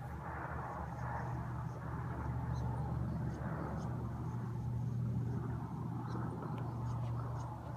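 Steady drone of firefighting air tanker engines working through the valley: a constant low hum with a rushing noise over it that swells and eases slightly.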